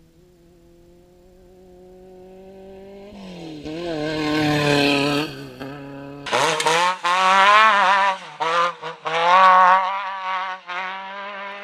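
Off-road race buggy engine growing louder as it approaches at speed, then passing about four to five seconds in with a drop in pitch. Then a race buggy's engine at full throttle through a dirt corner, its pitch climbing in repeated rising sweeps, each broken off briefly before the next.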